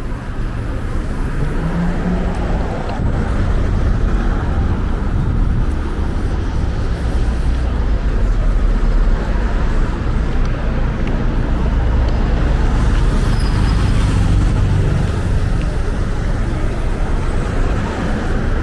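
Steady road traffic, with cars passing and a low rumble that swells a few seconds in.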